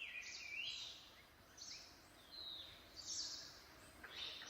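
Birds calling in a rainforest ambience: a string of short sweeping chirps and whistles, about one burst every second, over a faint steady hiss.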